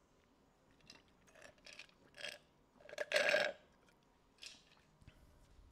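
A man drinking through a straw from a glass: a few soft sips and swallows, with a louder gulp about three seconds in.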